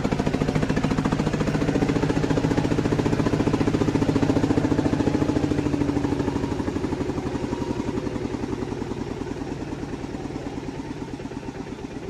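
Single-cylinder diesel engine of a Thai walking tractor ('e-taek') pulling a loaded passenger trailer, chugging steadily with fast, even firing pulses. It grows gradually quieter over the second half.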